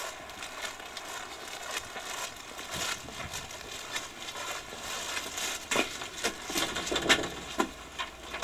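Footsteps crunching on a thinly snow-covered walk, with coat rustling and scattered clicks and knocks, the knocks heavier near the end.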